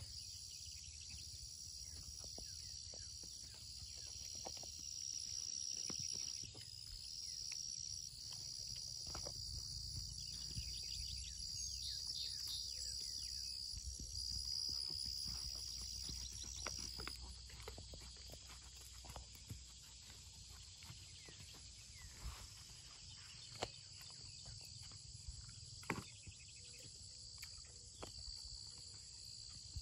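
Insects trilling steadily in the background over a low outdoor rumble, with the soft thuds of a horse's hooves on arena sand and a few sharper knocks in the second half.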